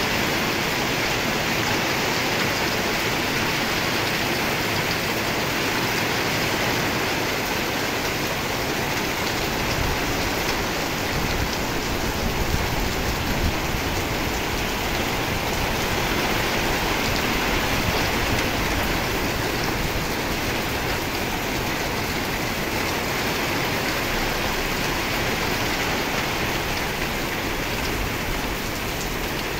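Heavy rain falling steadily onto a waterlogged street, a continuous even hiss of the downpour.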